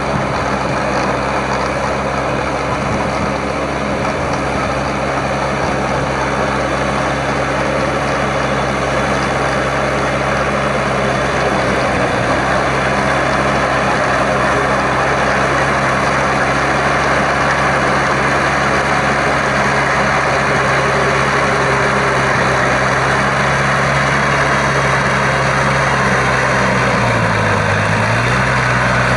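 Shibaura V52F tractor's 52-horsepower four-cylinder diesel engine running steadily under load as it pulls a rotary tiller through flooded paddy mud. Near the end the engine briefly drops in pitch and then picks up again.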